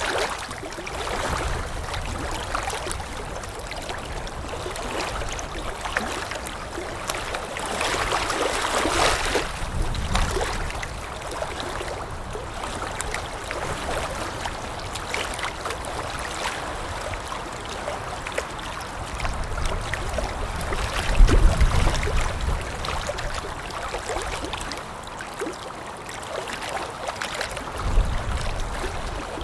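Water lapping with wind: a continuous wash of small waves slapping and splashing, with many little splashes. Gusts of wind rumble low, strongest about two-thirds of the way through and again near the end.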